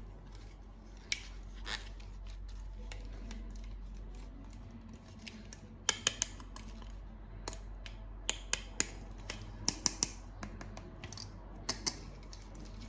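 Scattered short, sharp clicks and snips of small plastic toy parts and packaging being handled, clustering about six seconds in and again a little later, over a low steady hum.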